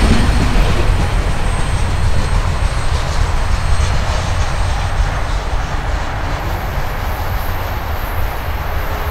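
Freight train rolling away along the track, its wheel and rail noise fading steadily as the last cars recede.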